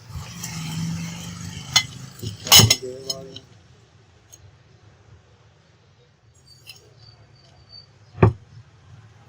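Metal parts of a ceiling fan being handled and fitted together: a scraping rub at first, then sharp metallic clinks and knocks. The loudest knock comes about two and a half seconds in, a few faint ringing clinks follow later, and there is another sharp knock near the end.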